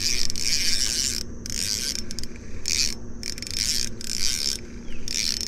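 Fishing reel working under the load of a heavy hooked fish: a high-pitched mechanical rasp in a string of short spells, starting and stopping every half second or so, over a steady low hum.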